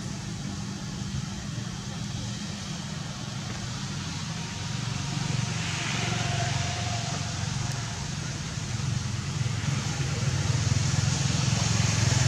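Road traffic with motorbike engines running past, a steady low hum that swells about six seconds in and again near the end.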